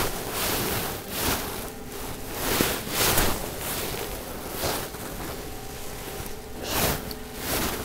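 Wind buffeting the microphone in uneven gusts on an open golf course, with a faint steady hum underneath.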